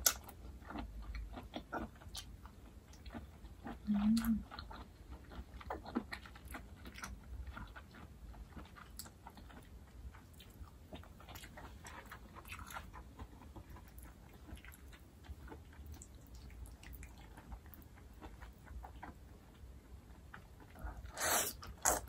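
Close-up chewing of jjajangmyeon and vegetables, with many small wet mouth clicks. Near the end comes a loud slurp as a mouthful of the black-bean-sauce noodles is sucked in.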